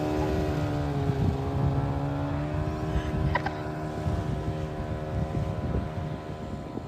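Jet ski engine running steadily at speed while towing a banana boat, one even drone with small shifts in pitch that fades slightly toward the end as it moves away.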